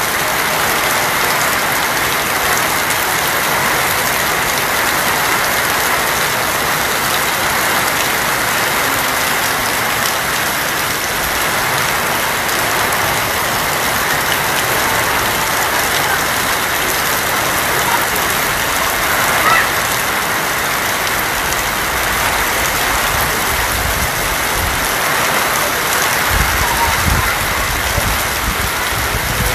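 Steady rain drumming on a corrugated tin roof, an even hiss that holds at one level. Some low rumbling comes in over the last few seconds.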